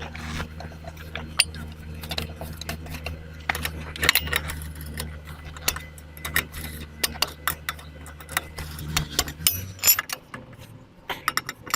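Hand tools and metal parts clinking and clicking irregularly while car parts are refitted by hand, with ratchet-like clicks. Underneath runs a steady low hum that stops about nine and a half seconds in.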